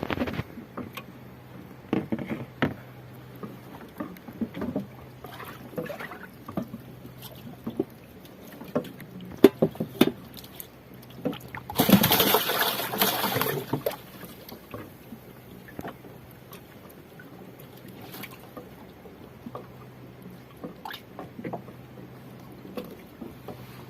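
Scattered knocks and clatters of handling on a small fishing boat, with water trickling and lapping. About halfway through comes a two-second rush of loud noise, and a faint low hum comes and goes underneath.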